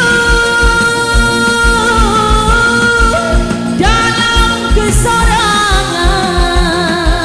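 Music with a steady drum beat of about three beats a second under a long-held melody line with vibrato, which changes to new notes about four seconds in.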